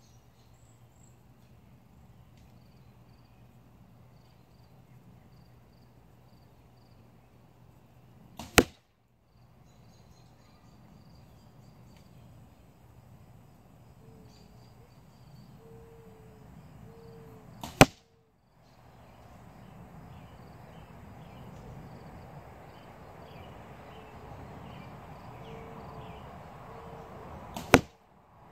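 Three arrows from a compound bow striking a bag target close by, each a single sharp thwack, about nine to ten seconds apart.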